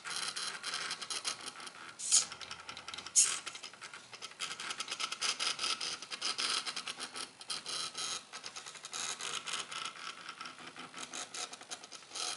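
Mini CNC pen plotter built from two DVD-drive stepper mechanisms running a drawing. The small stepper motors drive the sleds in fast, continuous ticking with a steady whine, and two louder clicks come about two and three seconds in.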